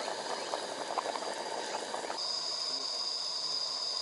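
A pot of vegetable stew simmering on a camp gas stove, bubbling and popping. About two seconds in, the bubbling stops and a steady high-pitched tone takes over.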